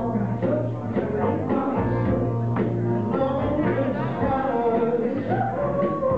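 A recorded song with singing over a steady, sustained bass line, played back for a line dance.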